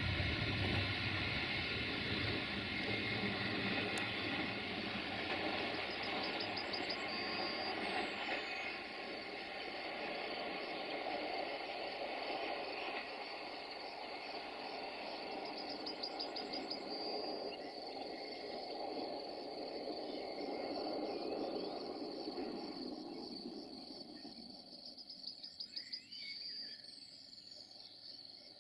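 Siemens Desiro VT642 diesel multiple unit running away into the distance, its rumble fading out over about twenty seconds. Crickets chirp steadily throughout, with a few short bird calls.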